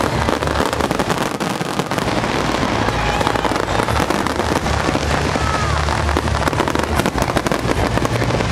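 Fireworks display: a dense, unbroken crackle of many small bursts over a low rumble, with a few short whistling glides.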